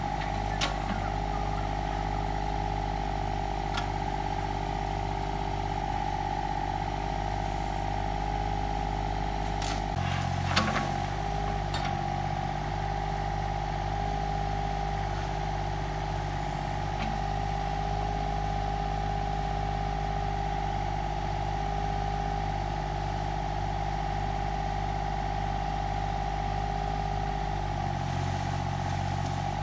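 An engine running steadily with a constant high whine over it; its low note shifts about ten seconds in and again near the end, with a few sharp knocks around the first shift.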